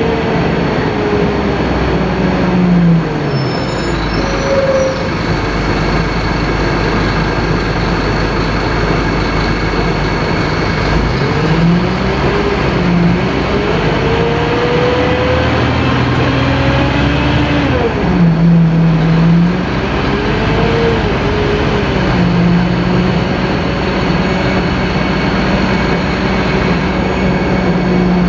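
Scania K-310IA bus's five-cylinder in-line turbo diesel engine running loud under way. Its pitch climbs and drops back several times as the bus accelerates and eases off.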